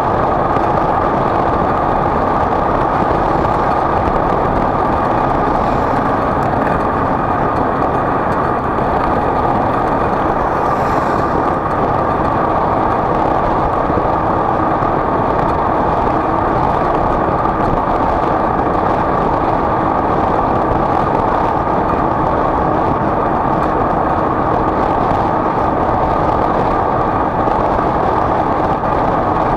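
Vehicle travelling at a steady speed: a loud, constant drone of running and road noise that does not change.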